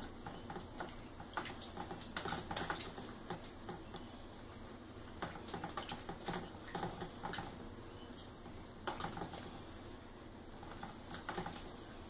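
White-eyed conure bathing in a shallow tub of water, dipping and flapping its wings: irregular bursts of splashing and spattering droplets, in several spells with short pauses between them.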